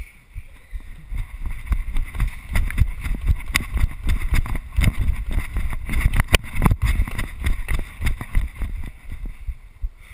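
Wheeled scaffold tower rolling over rough ground: a continuous low rumble with irregular knocks and rattles, and a few sharper clanks around the middle.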